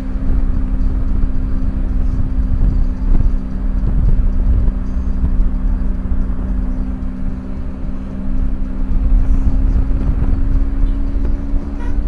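Car driving along a road, heard with wind buffeting a microphone held out of the side window: a heavy, uneven low rumble over a steady low hum.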